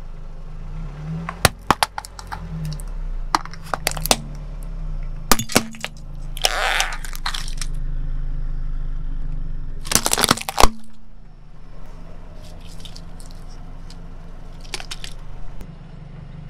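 Hollow plastic toy microphone cracking and snapping as a car tyre rolls over and crushes it: a run of sharp cracks, a grinding crunch about six to seven seconds in, and the loudest snaps about ten seconds in, over a low steady hum.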